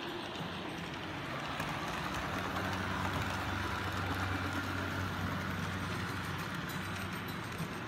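Model trains running on a large model railroad layout: a steady low electric-motor hum and running noise, swelling a little in the middle.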